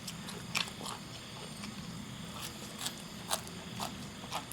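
Someone eating: irregular short, sharp clicks and smacks of chewing and mouth sounds, about two a second, over a faint steady low hum.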